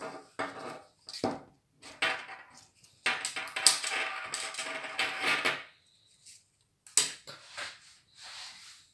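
A watch and its fabric strap being handled on a tabletop: short clicks and taps of the metal case and buckle. From about three seconds to nearly six seconds there is a longer scraping rustle as the fabric strap is worked off the watch case.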